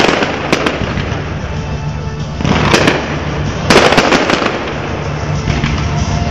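Fireworks exploding overhead: aerial shells bursting with sharp bangs and crackling stars. A loud bang comes right at the start, another about half a second in, and more clusters of bangs and crackle come near three and four seconds in.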